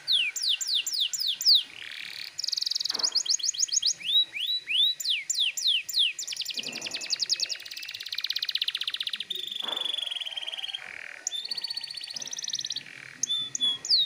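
Domestic canary singing continuously: runs of quick, downward-sweeping whistled notes alternate with fast rattling trills, the phrases changing every second or two.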